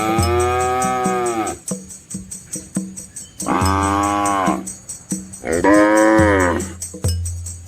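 Cows mooing: three long moos, the first about a second and a half long, each rising and then falling in pitch.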